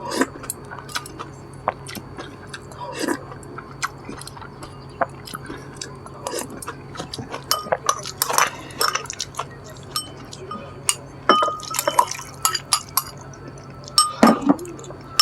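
Close-up eating sounds: a spoon and chopsticks repeatedly clinking against bowls and dishes, with wet slurping and chewing of stew and rice in several louder bursts.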